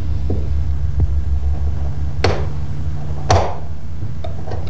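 A knife blade cutting a small piece of reed cane for an uilleann pipe reed: two sharp clicks about a second apart, over a steady low electrical hum.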